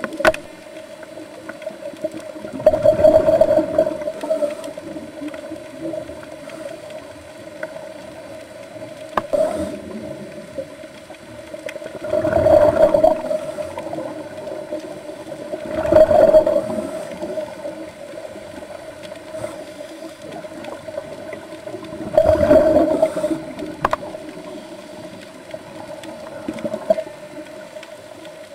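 Underwater recording of scuba divers breathing through their regulators: four swells of gurgling exhaled bubbles, each a second or two long, over a steady hum.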